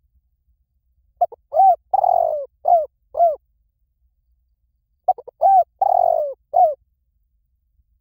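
Spotted dove cooing: two phrases of several coos, each with a longer note in the middle, about four seconds apart.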